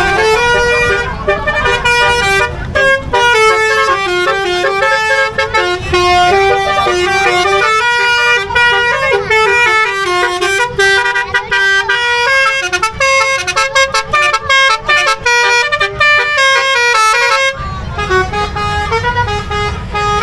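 Telolet (basuri) multi-tone vehicle horn playing a continuous melody of quick, stepping notes over a low rumble.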